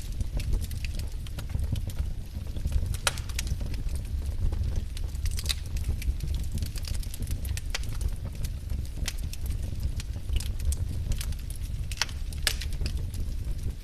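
Burning firewood crackling and popping in irregular sharp snaps over a steady low rumble of the flames.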